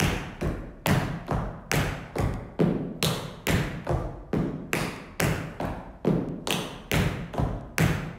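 Tap-dance footwork: two dancers' shoes striking a hard studio floor in a steady rhythm, about two strikes a second.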